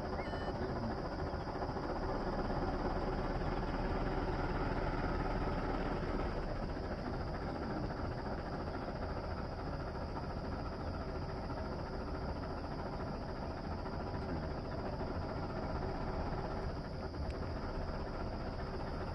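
Motor vehicle engine noise over a steady outdoor background, growing a little louder over the first few seconds and then easing off.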